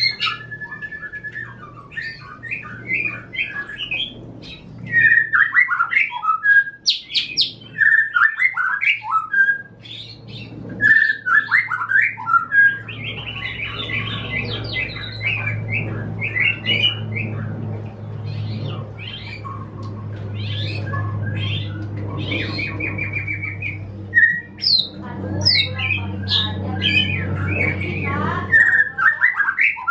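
Caged songbirds, a canary kept as song tutor beside a white-rumped shama, singing in quick, varied chirps and short trills. A low steady hum comes in about a third of the way through and stops shortly before the end.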